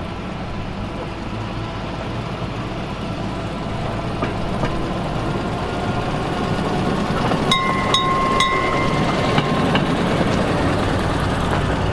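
Rio Grande Southern Galloping Goose No. 2 rail motor car's engine running as it approaches and passes, growing steadily louder. About two-thirds of the way in a horn sounds for about two seconds, in short toots running into a longer note.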